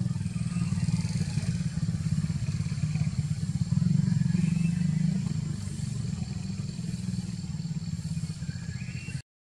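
A motorcycle engine running steadily, a low pulsing hum that grows a little louder about four seconds in and cuts off abruptly near the end.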